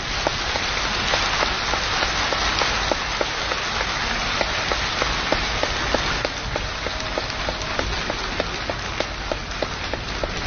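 A steady hiss with a dense, irregular patter of small ticks, like rain falling on a surface.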